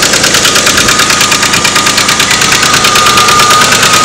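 Ford truck engine running with a rapid, even knocking and a steady high whine over it: the noise the owner asks about as a sign that something is wrong with the engine.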